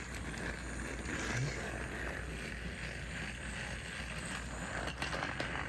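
Battery-powered Thomas Motorized toy engine James running along its track, the small electric motor and gears whirring steadily but sluggishly, with a few clicks near the end.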